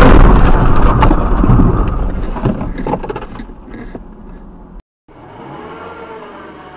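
Car crash noise dying away over about four seconds, with a few sharp knocks and rattles as the wrecked car comes to rest. Then, after a brief dead silence, a much quieter steady car engine and road hum.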